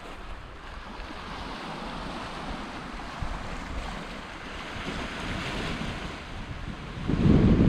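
Gentle sea waves washing and a sea breeze, with wind buffeting the microphone in a loud low rumble near the end.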